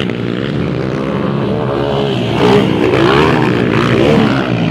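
Dirt bike engines revving during a motocross race. The pitch rises and falls with the throttle several times over the second half.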